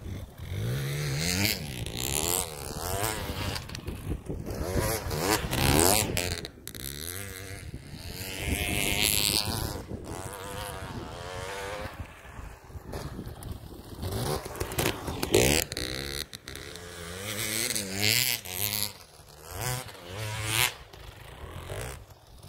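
2020 KTM 300 XC TPI two-stroke single-cylinder dirt bike engine revving and easing off as the bike rides the snowy slope. Pitch and loudness rise and fall several times as the throttle opens and closes and the bike moves toward and away.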